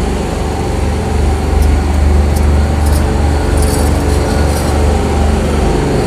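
Steady low mechanical hum of a running machine, with a faint hiss over it.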